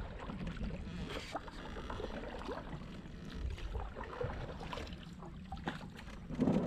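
Canoe being paddled: paddle dipping and water moving along the hull, with scattered light knocks and a steady low rumble, and a louder stroke near the end.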